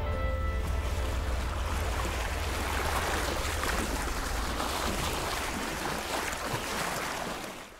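Water rushing along the hull and bow wave of a 30-foot sailboat under sail at about 6.5 knots, with wind buffeting the microphone in a steady low rumble. A little background music fades out in the first second.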